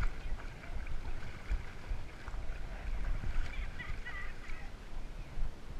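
Water sloshing and splashing around an action camera strapped to a swimming dog's back, with a steady low rumble of water and wind on the microphone.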